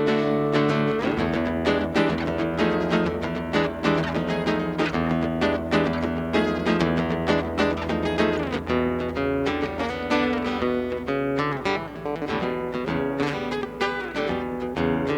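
Acoustic guitar playing an instrumental break in a song, with many plucked notes over sustained chords.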